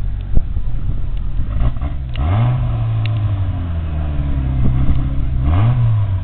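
Engine of an off-road 4x4 trial vehicle running, revving up sharply about two seconds in and again near the end, holding the higher revs each time.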